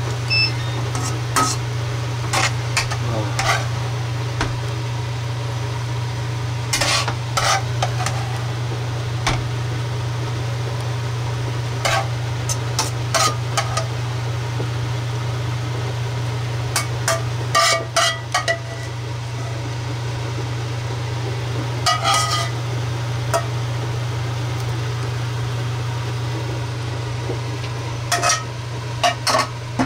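A metal ladle clinking and scraping against a wok as saucy food is scooped out onto a plate, in scattered clusters of knocks, over a steady low hum.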